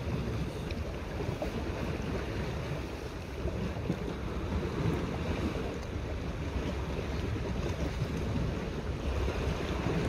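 Wind buffeting the microphone with a steady low rumble, over sea waves washing against a rocky shore.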